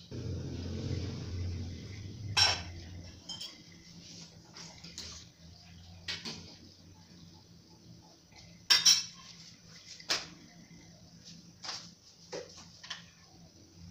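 Stainless steel pot and lid clanking, and a metal spoon knocking against the pot as the boiling soup is stirred: a few loud clanks, one a quick double, with lighter taps between. A low rumble fills the first two seconds.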